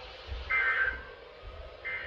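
Emergency Alert System end-of-message data bursts from a weather radio: short, buzzy two-tone warbles, one about half a second in and another starting near the end. They mark the close of the severe thunderstorm warning broadcast.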